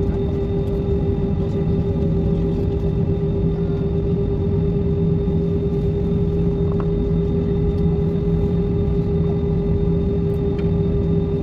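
Jet airliner cabin noise while taxiing: the engines at idle make a steady rumble with a constant hum tone, heard from inside the cabin.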